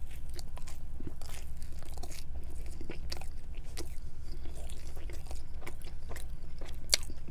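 A person chewing a mouthful of pizza crust, with many small crisp crunches through the bite and a sharper crunch near the end.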